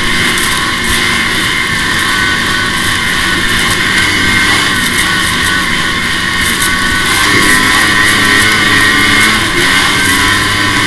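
Arctic Cat F6 EFI snowmobile's two-stroke twin engine running steadily under way at speed, a loud continuous drone.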